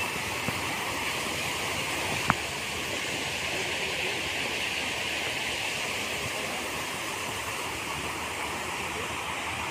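Steady rushing of flowing floodwater, even throughout, with one sharp click about two seconds in.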